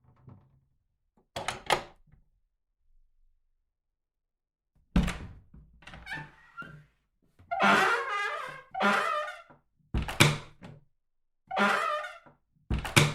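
A run of door sound effects: a quick double click like a latch, then three heavy door thuds a few seconds apart, with the door rattling and squeaking as it moves between them.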